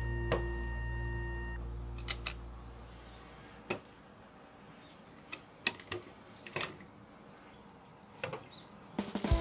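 Hard plastic clicks and taps of Plarail toy pier blocks being set down and snapped together, a sharp click every second or two. Background music fades out in the first few seconds and comes back near the end.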